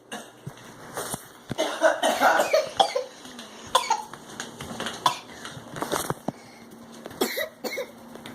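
A person coughing, with scattered clicks and knocks around it.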